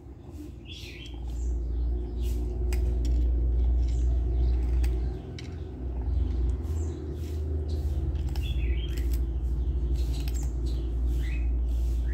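Kitten crunching dry kibble: quick, irregular small clicks over a steady low rumble, with a few short, high chirps scattered through.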